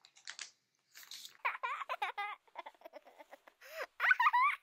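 A faint rustle of paper as the book is closed, then high-pitched giggling and babbling like a baby's, in short wavering bursts that get louder near the end.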